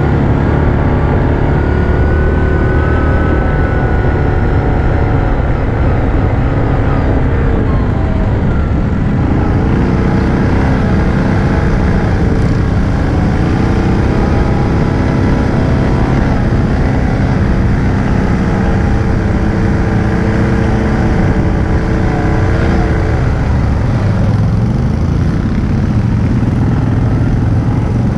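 Yamaha Grizzly 700 ATV's single-cylinder four-stroke engine running under way. Its pitch rises and falls as the throttle changes, with a clear climb in pitch near the end.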